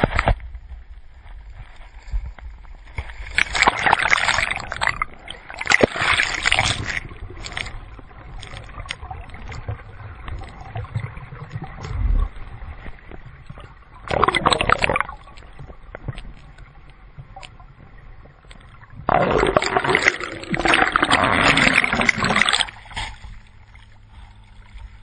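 Water sloshing and splashing against a camera at the waterline of a kayak, gurgling and muffled while the camera is under the surface. Three loud rushing surges break through: two close together a few seconds in, a short one about midway, and a longer one of about three seconds late on.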